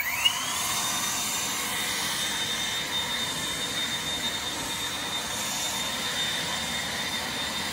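Aoetree 20 V cordless brushless leaf blower spinning up as the trigger is pulled, then running at steady speed: a high motor whine over the rush of air from the nozzle.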